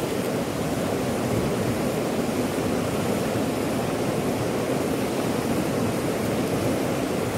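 River water rushing steadily over rapids.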